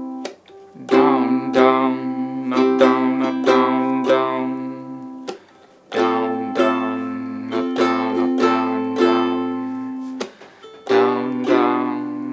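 Ukulele strummed with a down-down-up-down-up-down strumming pattern, played as a slow demonstration in three runs of chords with brief stops between them.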